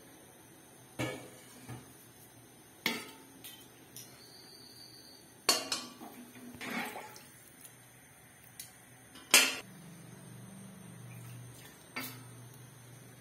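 Stainless steel cooking pot and utensils clanking: about six sharp metal knocks, scattered and irregular, the loudest about nine seconds in.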